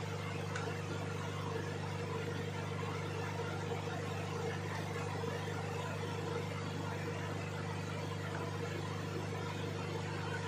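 Hot air rework station blowing steadily while a BIOS chip is soldered onto a motherboard: a continuous whir with a low hum.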